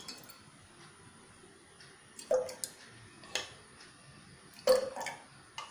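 Metal spoon clinking against a glass jar as thick kudampuli paste is spooned in. There are a few separate clinks, the loudest near the end.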